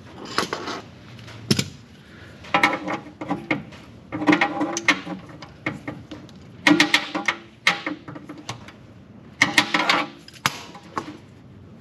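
Ratchet wrench clicking in about six short bursts as a 19 mm six-point socket backs out an oil drain cap that has already been broken loose.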